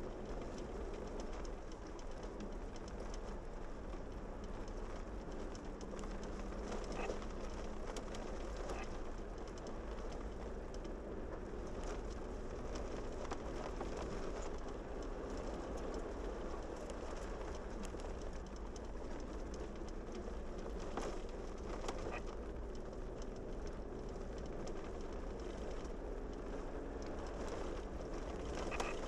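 Vehicle driving up a gravel mountain road: steady engine hum and tyre noise, with a few sharp clicks or knocks scattered through.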